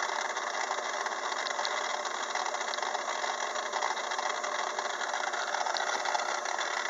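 A 6-inch Craftsman lathe set up for gear cutting, running steadily with a continuous mechanical whir.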